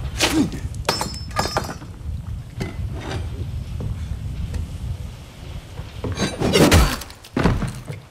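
Glass breaking and clinking, with several sharp crashes near the start and a louder burst of impacts about six to seven seconds in, over a constant low rumble.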